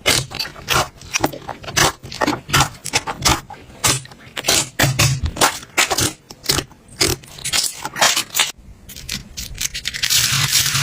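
Slime being squeezed and pressed by hand, giving an irregular run of sharp clicks and pops, several a second. Near the end it changes to a denser, continuous scraping hiss.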